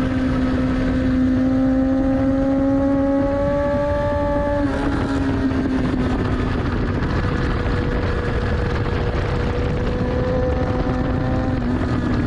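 2014 Kawasaki ZX-10R's inline four-cylinder engine pulling hard on track, its note climbing slowly, with abrupt steps in pitch about four and a half seconds in and again near the end, under heavy wind rush.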